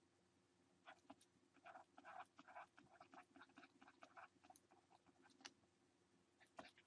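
Near silence: faint, irregular taps and scratches of a stylus writing on a tablet screen, from about a second in until about five and a half seconds, over a faint steady hum.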